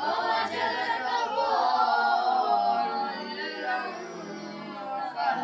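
A group of boys chanting a Quranic verse together in unison, drawing out one long melodic phrase in tajweed-style recitation.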